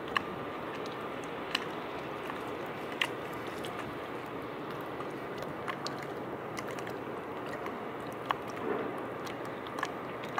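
Small waves lapping against concrete harbour quay steps: a steady wash with irregular crackling clicks and pops, a few of them sharper than the rest.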